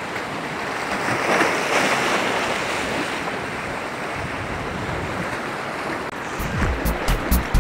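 Sea waves washing and breaking against the rocks of a breakwater, a steady surf wash that swells about a second and a half in, with wind on the microphone. About six seconds in it cuts off and music with a strong beat starts.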